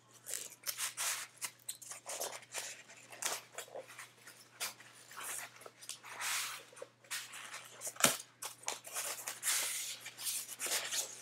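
Product packaging being worked open by hand: irregular rustling, scraping and tearing, with one sharp knock about eight seconds in.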